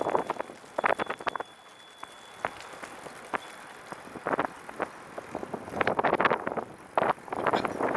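Recumbent trike rolling along a paved path, its frame and fittings rattling in short bursts of clicks every second or two as it goes over bumps.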